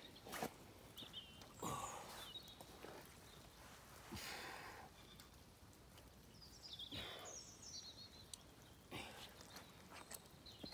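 Faint outdoor ambience by a lake, with a few short, high bird chirps and occasional brief rustles.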